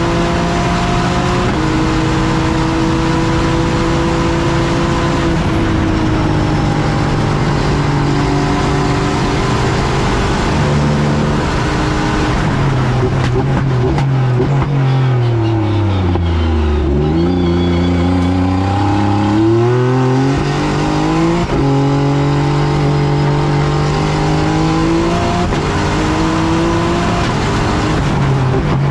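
Nissan VR38DETT 4.1-litre twin-turbo V6 race engine heard from inside the car's cockpit on a flat-out lap, running hard with several gear changes. Around the middle the pitch drops steeply to a low point as the car slows and downshifts, then climbs again as it accelerates away.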